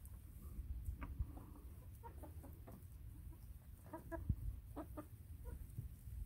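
Silver-laced Wyandotte hens clucking in short calls, several in quick runs, over a steady low rumble.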